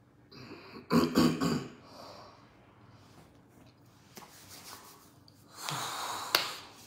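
A man's breathing and throat noises close to the microphone: a short snort-like throat sound about a second in, then a long breath out near the end, with a couple of small clicks.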